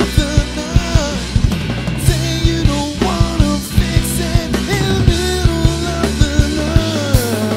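Live rock band playing: drum kit keeping a steady beat under electric guitar and bass, with a man singing lead.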